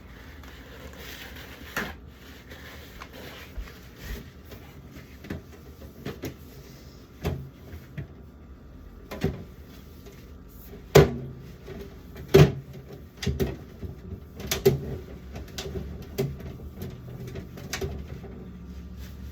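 Scattered knocks and clunks of food containers and packages being set onto refrigerator shelves and into its drawers as the fridge is restocked; the two loudest knocks come a little past the middle.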